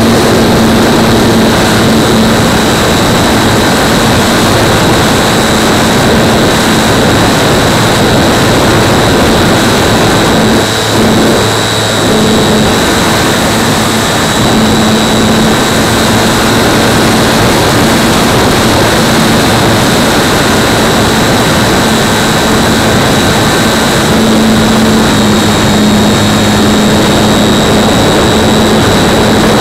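Super Cub aircraft in flight heard from an onboard camera: a loud, steady drone of motor and propeller under heavy wind rush, with a high steady whine. It eases off briefly about eleven seconds in.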